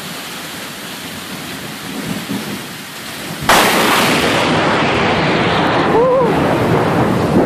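Heavy rain falling steadily, then about three and a half seconds in a sudden loud thunderclap that goes on as a long, even rumble. A brief vocal cry is heard near the end.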